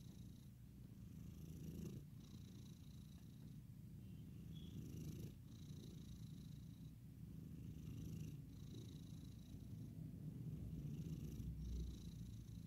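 A sleeping pet snoring faintly: a low rumble on each breath, swelling about every three seconds, with a soft hiss as the breaths come and go.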